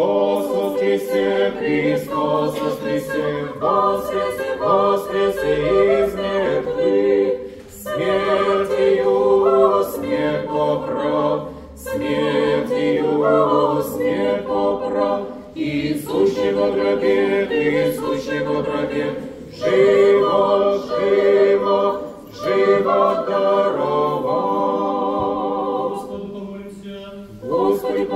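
Orthodox church choir singing a panikhida chant unaccompanied, in sustained phrases of a few seconds each with brief pauses between them.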